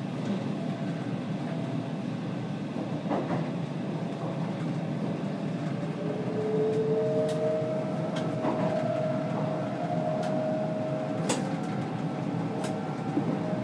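Stockholm metro C20 train running along the track, a steady rumble with a few sharp clicks. About halfway through a steady whine comes in and holds for several seconds.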